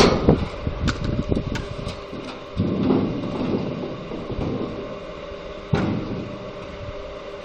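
Rail-type log splitter running: a steady machine hum with scattered knocks, two of them louder, about three seconds in and near six seconds.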